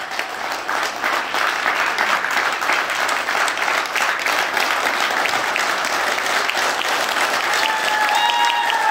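A standing audience of a few dozen people clapping hard in sustained applause.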